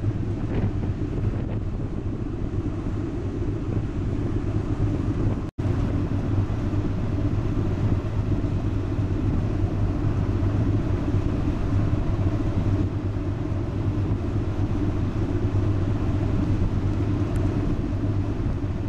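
Wind buffeting the microphone over the low, steady drone of a river cruise ship's engines, heard from the open deck under way. The sound drops out for an instant about five and a half seconds in, where the recording cuts.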